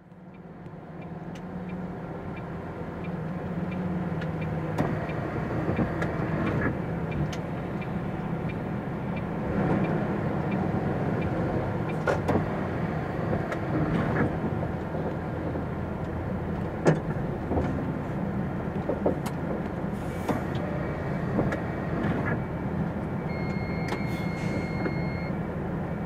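Diesel engine of a MAN TGX tractor unit running steadily at low speed as the artic rolls slowly, with scattered light clicks and knocks. Near the end a steady high beep sounds for about two seconds.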